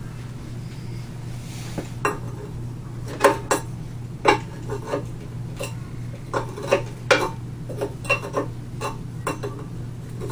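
Steel wrench clinking on the main bearing cap nuts of a Hercules 2 1/2 HP hit-and-miss engine as they are loosened: irregular metal clicks and clinks, starting about two seconds in.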